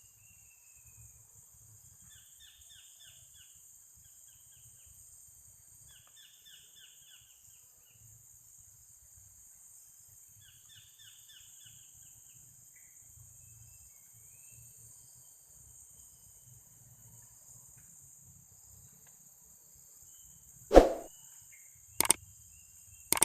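Outdoor riverside ambience: a steady high-pitched insect drone, with a bird repeating a short run of falling notes every few seconds. Near the end, three sharp loud clicks or knocks.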